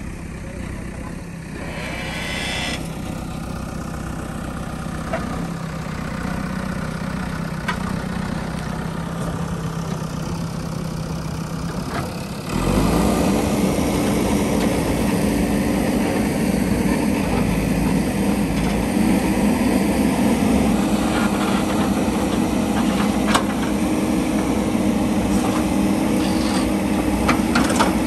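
JCB backhoe loader's diesel engine working steadily, its pitch creeping up, then revving up sharply about halfway through and holding at higher revs under load. A few sharp knocks come near the end.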